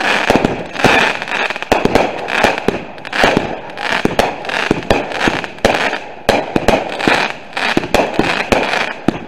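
Fireworks going off: a dense, unbroken run of sharp bangs and crackles, several a second.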